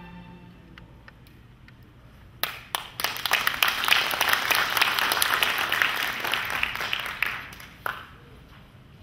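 A string ensemble's last held chord fades away in the first second; after a short pause an audience applauds for about five seconds, dying out near the end.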